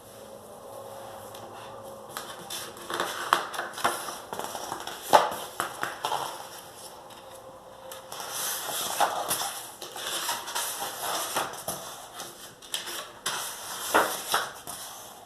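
Paper rustling and crinkling with irregular sharp taps and clicks as a paper colouring magazine is handled and its pages are turned.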